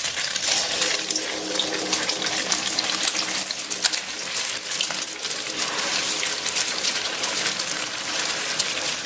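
Beaten egg being poured into hot oil in a wok and deep-frying: a steady sizzle with dense fine crackles as the egg puffs up in the oil.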